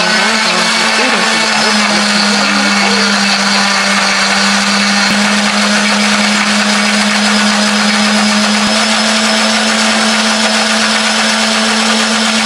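Electric countertop blender running at full speed, grinding red chilies, shallots and garlic into a spice paste. Its motor hum wavers slightly in the first few seconds while the chunks break up, then holds steady.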